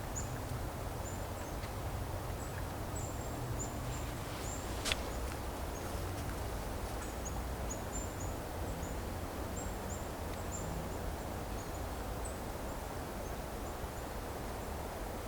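Small songbirds of a foraging winter flock giving many thin, very high-pitched call notes, short and scattered, over a low steady outdoor background. There is a single sharp tap about five seconds in.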